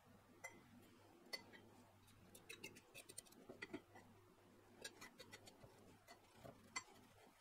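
Scattered faint clicks and taps of a metal fork against ceramic bowls while a fish fillet is dipped in beaten egg and breadcrumbs, over a faint steady low hum.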